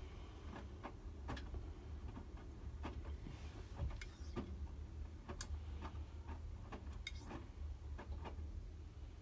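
Hotpoint WMFUG 942 washing machine running a wash with its heater on: a steady low hum with irregular light clicks and ticks.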